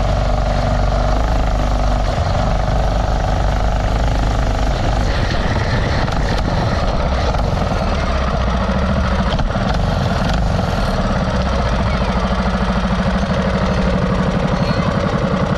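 Mini bike's Predator 212 single-cylinder engine running steadily, its note shifting about halfway through.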